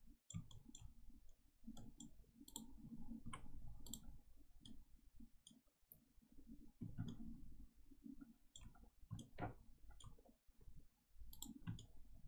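Faint, irregular clicking from a computer mouse and its scroll wheel, scattered throughout, over a low rumble.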